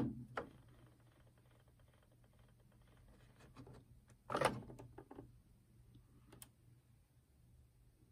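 Clicks, knocks and a brief plastic clatter from handling the stereo's opened mechanism, loudest about four and a half seconds in, over a faint steady low hum.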